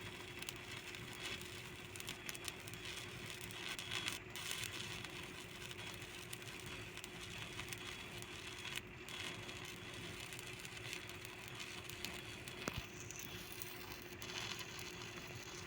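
Electric arc welding crackling steadily, with a steady hum beneath and two brief breaks in the crackle, about 4 and 9 seconds in.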